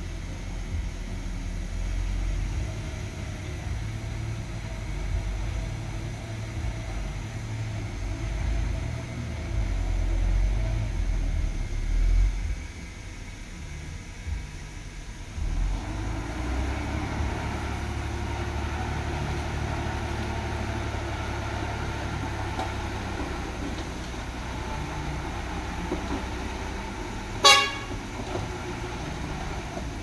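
Heavy diesel earthmoving machinery running, the engine rumble heavier and uneven for the first dozen seconds, easing off for a few seconds about halfway, then steady. Near the end a short horn toot sounds once, the loudest sound.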